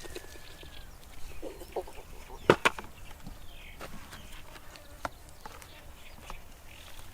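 Scattered short knocks and clicks, the loudest a sharp double knock about two and a half seconds in, with faint bird-like chirps and a thin whistling call in the first second.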